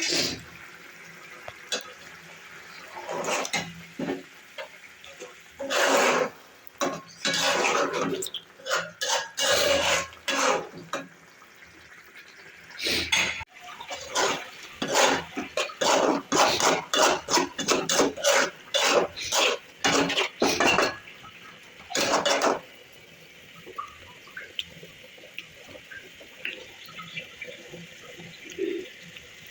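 A metal utensil scraping and clinking against a cooking pot in irregular runs of quick strokes, with the densest run in the middle, as food is stirred and turned.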